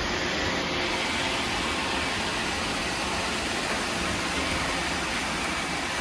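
Many robot vacuum cleaners running at once, a steady whirring hiss of their suction fans and brushes.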